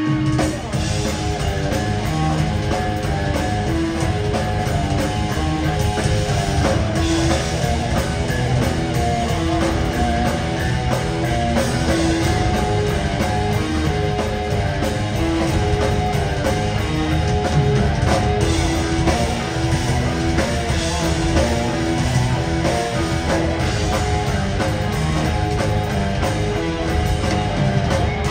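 Live progressive rock band playing loud and steady, with electric guitar over a drum kit and keyboards, heard from the audience in a theatre.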